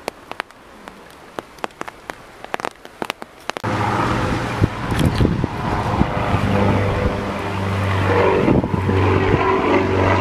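Scattered light taps and clicks, then about a third of the way in the low, steady drone of a twin-engine propeller plane flying overhead starts suddenly and stays loud, with gusty wind noise on the microphone.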